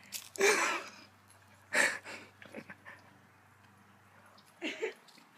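Cat hissing in short breathy bursts, three times, the first and longest about half a second in.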